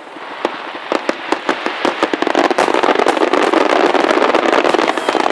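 Aerial fireworks shells bursting in rapid succession during a display. The bangs come faster from about two seconds in until they run together into a dense, continuous barrage.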